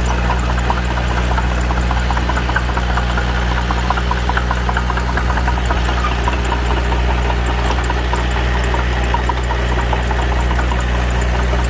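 Small Komatsu D21P bulldozer's diesel engine running steadily, with a dense patter of light clicks over the even low hum.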